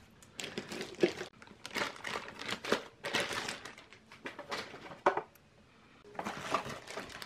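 Packaging being handled during an unboxing: a plastic table deck lifted out of a styrofoam insert in a cardboard box, giving irregular clicks, knocks and rustles of plastic against foam and cardboard. A short lull comes about three-quarters through, then more rustling as a hand reaches into the foam.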